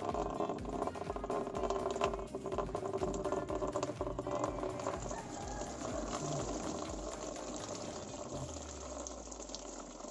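Radiator coolant draining from a loosened drain petcock in a thin stream into a plastic basin, splashing steadily; the sound changes near the end as more water comes down in several streams.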